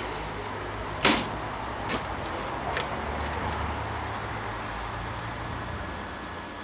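A sharp knock about a second in, then a few lighter knocks, over a steady low hum.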